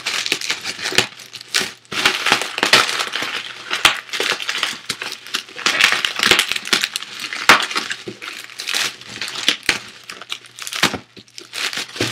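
Plastic bubble wrap being crinkled and peeled off a boxed toy, a dense crackling broken by many sharp clicks.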